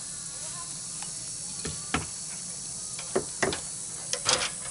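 Hand staple gun driving staples through roofing felt into a wooden frame: several sharp snaps, starting about one and a half seconds in and bunched near the end. A steady high hiss runs behind.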